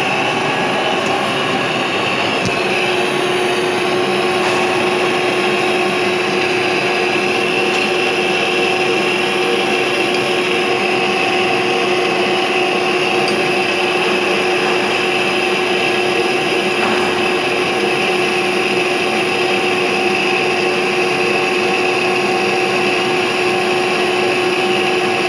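Large engine lathe running while turning a big steel roll: a steady, loud mechanical drone with several steady whining tones. A lower whine sets in about two and a half seconds in and holds.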